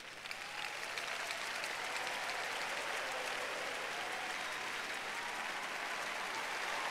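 A large congregation applauding, swelling over the first second and then holding steady.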